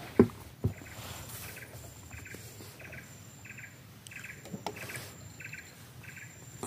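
A short, pulsed chirping call repeating steadily about every two-thirds of a second, with a faint high steady tone coming and going. Two sharp knocks come in the first second, the first being the loudest sound.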